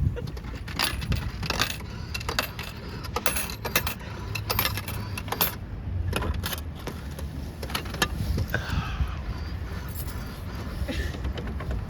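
Vending machine being worked after the button press: a run of clicks, knocks and metallic clinks, thickest in the first half, over a low wind rumble.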